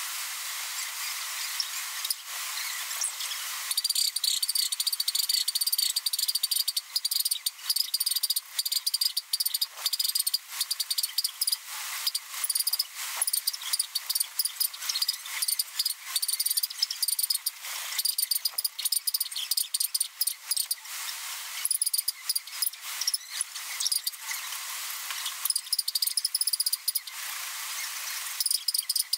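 Cricket-like insect chirping in rapid trills that start and stop, stronger from about four seconds in.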